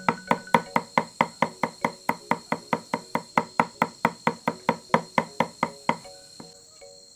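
A cleaver mincing garlic on a wooden chopping block: quick, even knocks about four a second, which stop about six seconds in.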